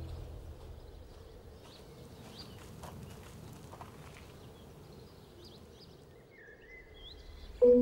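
A pause in marimba playing: the last chord of the Yamaha 5100-A marimba rings away at the start. Then only quiet open-air ambience with scattered faint bird chirps, until struck marimba notes come back right at the end.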